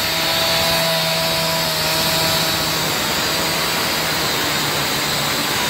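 Gas-powered cut-off (demo) saw running at full speed, its abrasive disc grinding through the steel of a truck cab mount: a steady engine note under a harsh, even hiss of the disc on metal.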